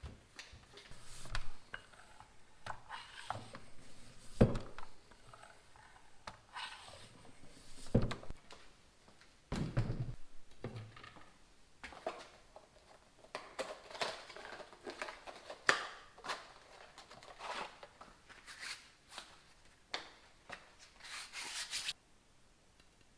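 Hand work on a road bicycle during reassembly: irregular clicks, knocks and rubbing of metal and plastic parts and tools, with a few sharper knocks and the noise stopping near the end.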